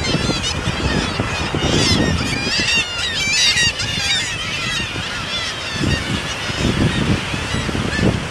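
A colony of black-legged kittiwakes calling: many short, nasal, overlapping cries, busiest a couple of seconds in, over a steady low rumble.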